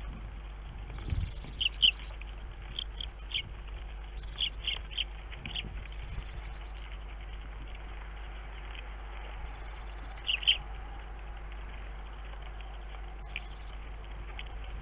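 Small songbirds at a bird feeder giving short chirps in scattered little clusters, with one high, falling whistle about three seconds in. A steady low hum runs underneath.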